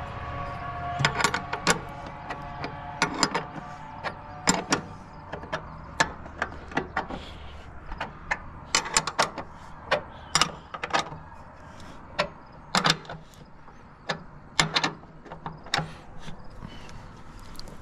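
Irregular metal clanks, taps and knocks from handling the red sheet-metal head cover of a grain bucket elevator and the tools on it. A steady hum with a few held tones fades out over the first few seconds.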